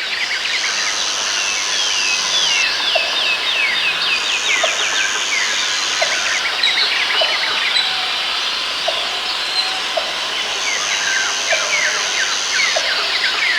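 Rainforest ambience: many birds calling with quick, dense chirps, over a high insect buzz that switches on and off every couple of seconds. A short low note repeats about every second and a half.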